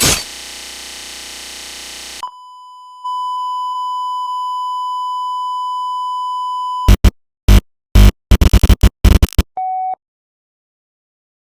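Electronic audio glitch: a loud crash that fades out over about two seconds, then a steady high beep held for several seconds. Next comes a rapid run of loud crackling static bursts and a short lower beep, and the sound cuts off suddenly into dead silence.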